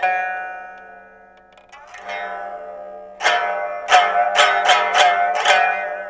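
Biwa, the Japanese lute, plucked with a plectrum: one note left ringing and dying away, then a softer note, then a run of about six quick plucks in the second half.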